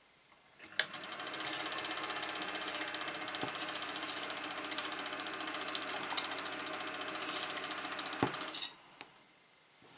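A circa-1957 Cirse Nilus 8mm cine projector starts up less than a second in. Its motor and film-transport mechanism run with a steady, fast, even clatter for about eight seconds, then stop. A sharp click marks the start and another comes just before it stops.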